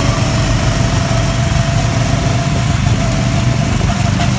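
Small gasoline go-kart engines running steadily as the karts drive around the track, a constant low drone with no change in speed.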